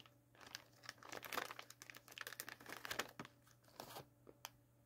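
Plastic snack pouch crinkling as it is handled and pulled open, in irregular bursts that stop about four seconds in.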